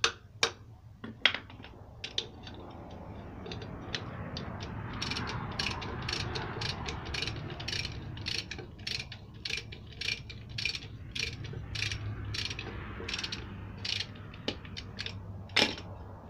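Socket ratchet wrench clicking in a quick, even run of strokes, about two to three clicks a second, as it is swung back and forth on the flywheel bolts of a Peugeot 504 diesel engine.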